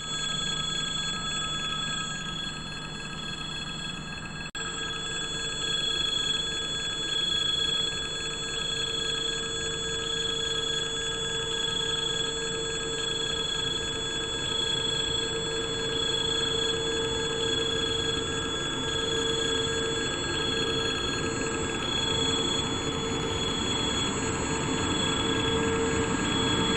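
Level-crossing warning bell ringing continuously with an even pulse, sounding while the crossing signal is active for an approaching train. The train's noise grows louder near the end.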